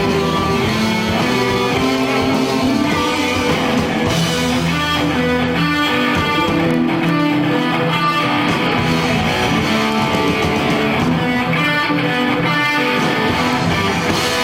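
Live rock band playing an instrumental passage: distorted electric guitars strumming over bass and drums, steady and loud.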